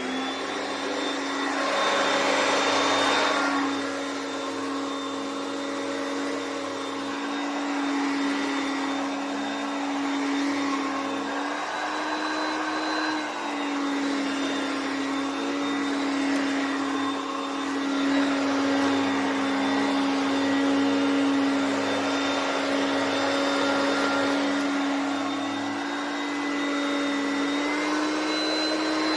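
Hoover Concept 1 upright vacuum cleaner running: a steady motor whine over rushing air that swells and fades every few seconds, the whine stepping up in pitch briefly twice.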